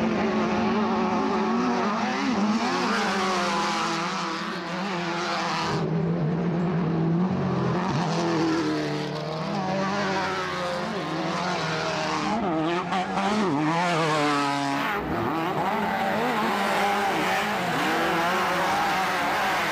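Off-road race buggy engines running hard, several at once, their pitch rising and falling repeatedly as the drivers rev, shift and lift through the corners.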